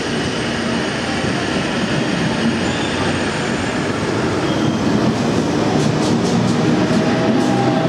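Thalys high-speed train rolling slowly past along the platform: a steady rumble of wheels and running gear that grows a little louder in the second half, with a few light clicks of wheels over rail joints near the end.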